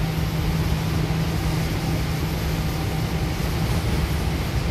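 Interior noise of a Goninan K-set double-deck electric train running at speed: a steady rumble of wheels on the rails with a low hum under it.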